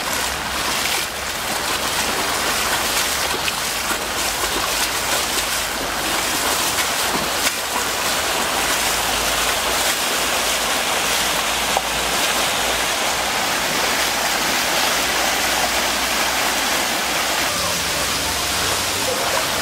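Floodwater rushing through a street in a steady, loud rush of churning water.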